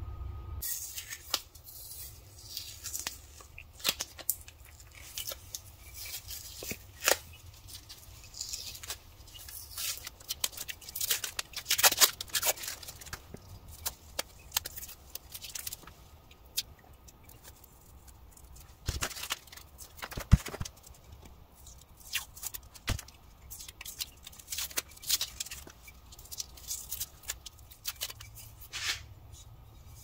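Blue masking tape being peeled and torn off the steel head of a hatchet multitool: irregular crackling rips and crinkles, with a few sharper knocks about two-thirds of the way through.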